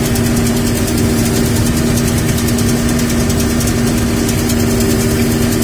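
Combine harvesting soybeans, heard from inside the cab: a steady engine and threshing drone with a constant hum and a fast, even ticking over the top.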